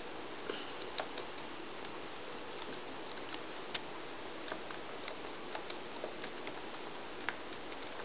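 Laptop keyboard keys clicking as they are typed slowly, one key at a time: scattered, irregular taps, a few louder than the rest, over a steady background hiss.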